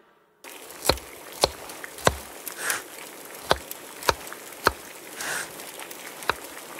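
A knife working an object by hand: sharp knocks roughly every half second, with two softer scraping strokes, over a steady hiss. It starts about half a second in.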